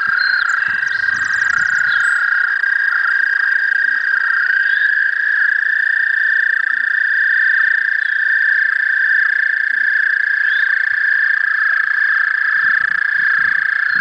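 American toads trilling in chorus: long, steady, high-pitched trills overlapping without a break. This is the breeding call of males gathered at the pond, one of them with its vocal sac inflated.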